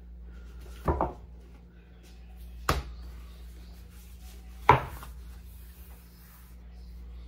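Three separate knocks on a hard kitchen surface, about two seconds apart, the last the loudest, like utensils or dishes being set down, over a steady low hum.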